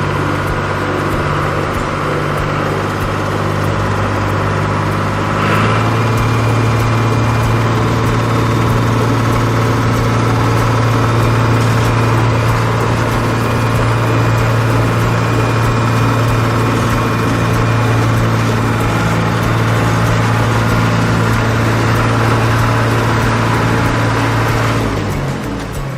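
Engine of a JCB digger running steadily; about five seconds in its note drops a little and gets louder, and it fades near the end.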